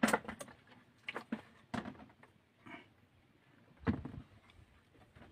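A few separate sharp knocks and clicks, irregularly spaced, the loudest about four seconds in.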